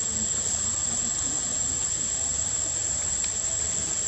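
Steady outdoor hiss with a constant high-pitched whine running through it and a low rumble underneath.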